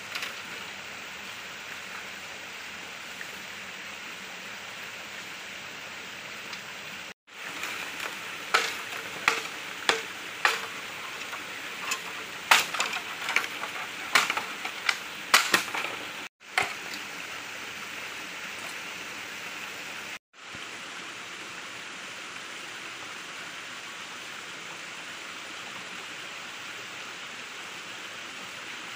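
A steady stream flowing. Between about 8 and 16 seconds a machete chops a bamboo pole in a quick, irregular run of sharp strikes.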